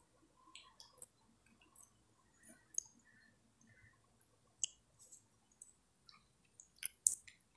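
Near silence with a few faint, scattered clicks, more of them near the end.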